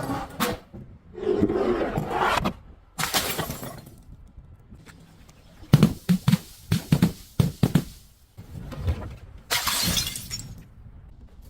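Glass bottles shattering, several crashes of breaking glass, with a quick run of about eight sharp knocks and clinks in the middle.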